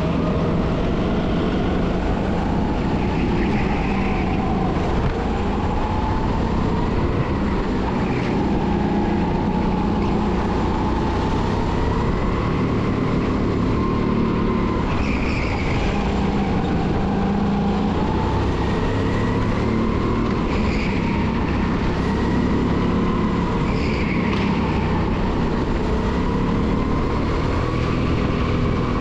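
270cc kart engine running hard on a lap, heard from the driver's seat. Its pitch rises and falls every few seconds as the throttle is lifted into corners and reopened out of them.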